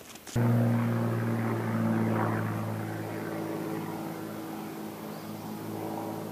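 A steady engine drone with a low hum, starting abruptly about a third of a second in, loudest around two seconds in and then slowly fading.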